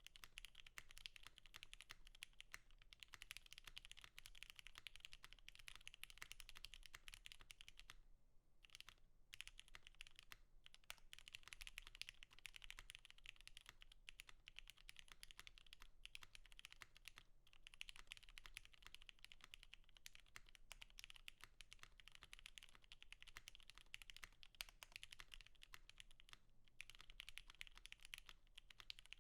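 Fast, continuous typing on a Monokei KFE CE mechanical keyboard with lubed and filmed Gateron Mini switches on an aluminium plate, with CRP R4 keycaps: a dense run of key clacks with a few brief pauses, the longest about eight seconds in.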